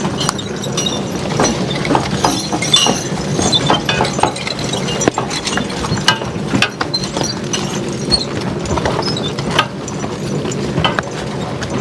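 Draft horses' hooves clopping while a horse-drawn wagon rattles and knocks over a rough, muddy woods road, with many irregular wooden and metal clatters.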